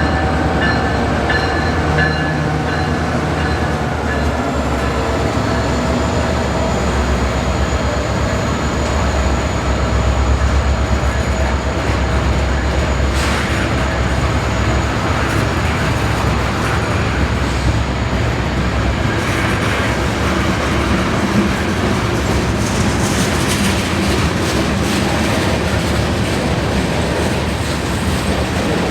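CSX freight train led by two EMD diesel locomotives rolling past. The last of a horn blast fades in the first couple of seconds, then comes a steady rumble and rail clatter, with a thin wheel squeal from about five seconds in and bursts of clicking from wheels over rail joints in the second half.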